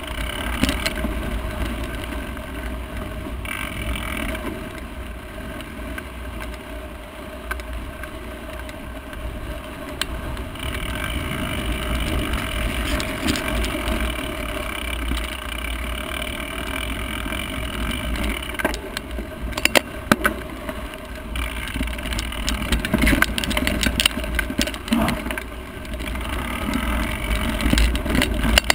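Mountain bike ridden over a rocky dirt singletrack, heard from a camera on the bike or rider: tyres crunching over dirt and rock, with the frame and chain rattling under a steady low rumble. A cluster of sharp knocks comes a little past the middle, as the bike goes over bumps.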